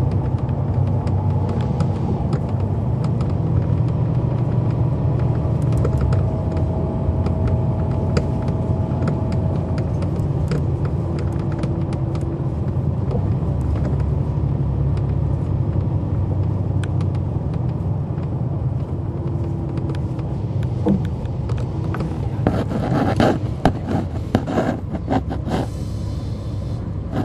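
Cummins ISL9 diesel engine and ZF Ecolife six-speed automatic transmission of a NABI 40-foot transit bus, heard from inside the cabin as the bus drives: a steady low rumble with faint whines that come and go. Near the end a spell of rattling and knocking stands out over it.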